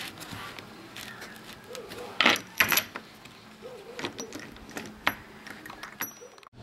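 Metal tite-joint countertop fastener handled against melamine: a few sharp metallic clicks and knocks, the loudest pair about two and a half seconds in and another about five seconds in.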